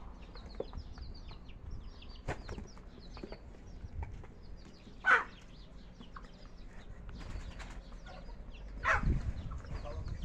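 Backyard chickens clucking, with two louder calls about five and nine seconds in, over constant faint high chirping.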